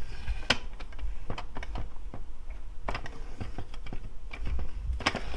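Irregular small clicks and taps from the plastic brewing unit of a Nivona coffee machine being handled during disassembly.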